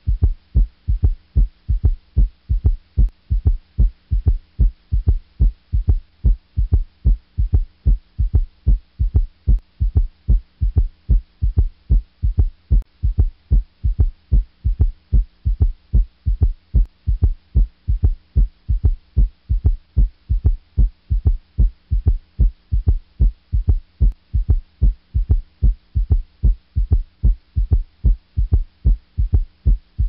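Heartbeat with an S3 (ventricular) gallop: each lub-dub (S1, S2) is followed shortly after the second sound by a soft, low third heart sound. The low thumps repeat at a steady, even rhythm.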